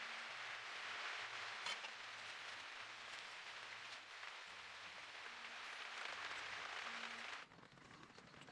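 Steady rain falling, an even hiss with a single sharp tick a little under two seconds in; it cuts off abruptly about seven and a half seconds in.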